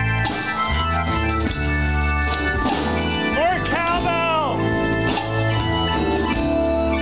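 Live band playing, with an organ sound from a Yamaha stage keyboard leading over a steady bass. About halfway through there is a short run of bending, sliding notes.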